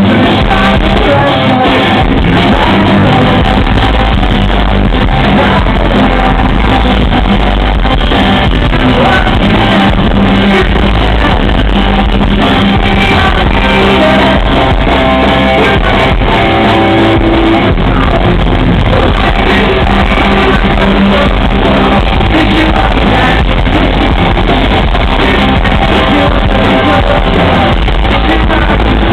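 Pop-punk band playing live: loud electric guitars, bass and drums with singing, continuous throughout.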